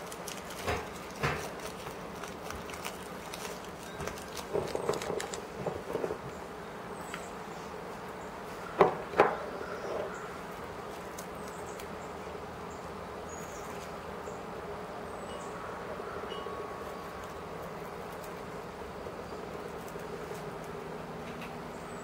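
A steady low hum with a few knocks and rustles over it, the two loudest knocks close together about nine seconds in.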